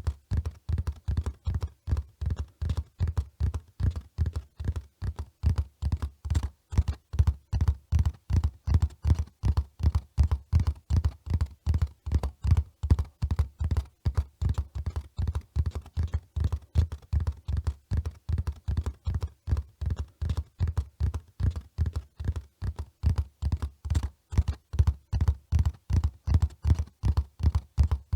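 Hoofbeats of a running horse: a fast, even, unbroken rhythm of dull, low thuds.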